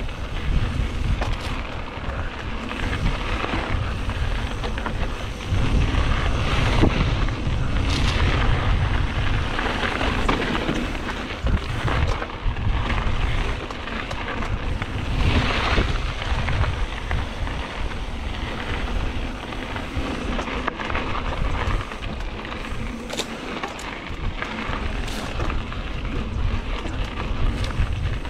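Mountain bike rolling fast over dirt singletrack: a continuous rumble of wind buffeting the microphone, with tyre noise on the dirt and scattered clicks and rattles from the bike over bumps.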